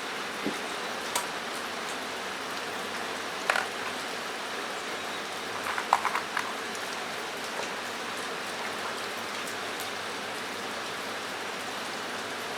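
Steady hiss of rain drumming on a metal roof, broken by a few sharp clicks, with a small cluster about halfway through.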